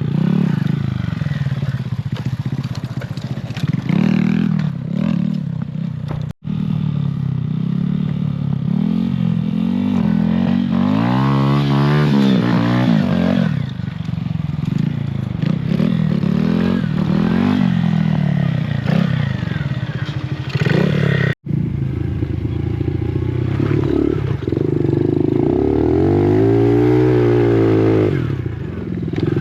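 Dirt bike engine revving up and down as it is ridden, the pitch rising and falling again and again, with two brief breaks in the sound.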